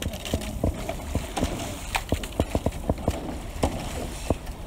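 A run of sharp, irregular knocks and clicks, several a second, over a low rumble.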